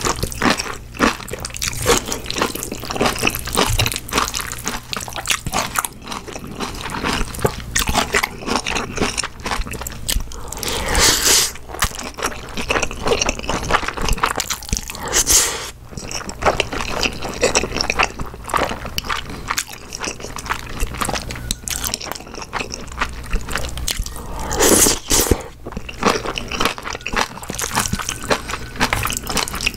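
Close-miked eating sounds of Chapagetti black-bean-sauce noodles: wet chewing and mouth clicks, broken three times by longer, louder slurping of noodles.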